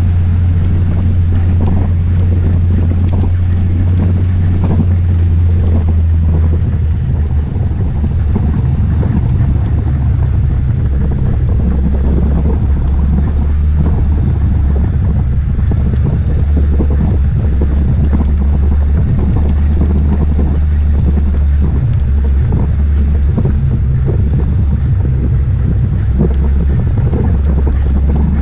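John Deere Gator 825i's engine running steadily as the utility vehicle drives over a rocky dirt trail, with wind buffeting the microphone and the rattle of tyres on gravel. The engine note drops slightly about six seconds in.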